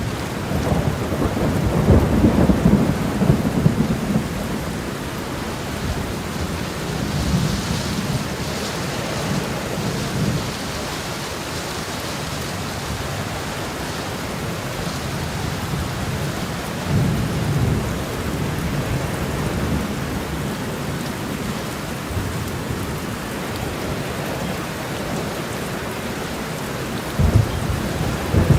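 Steady rain falling, with thunder rumbling low through it. The thunder swells in the first few seconds, again about two-thirds of the way in, and briefly near the end.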